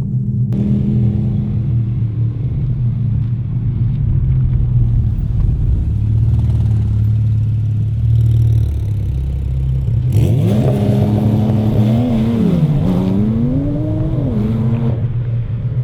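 Porsche 911 Turbo S (991.2) twin-turbo flat-six with a Fabspeed Valvetronic exhaust, running with a steady low drone. About ten seconds in it revs hard: the note climbs, dips back and climbs again, then drops off near the end.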